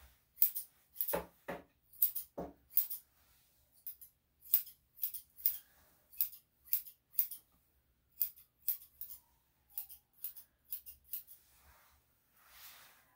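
Steel grooming shears snipping through a small dog's fur: quick, crisp cuts in irregular runs, a couple of dozen in all.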